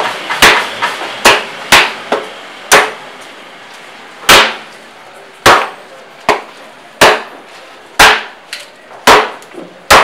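Heavy cleaver chopping through tuna on a wooden cutting block: about eleven sharp chops at an uneven pace, roughly one a second.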